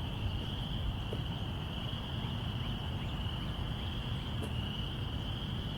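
Steady, continuous high chirring of insects such as crickets, over a low outdoor rumble.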